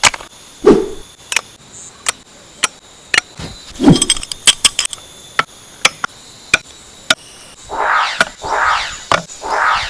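Sharp clicks and knocks of collapsible wardrobe parts being fitted together, with a couple of duller thumps. Near the end a pulsing sound starts, repeating about every half second.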